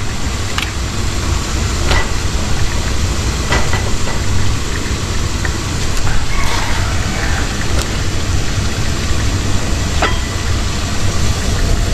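Large aluminium pot of water at a rolling boil on a gas burner, a steady rumbling bubble, with a few short knocks as ears of purple corn are dropped into the pot.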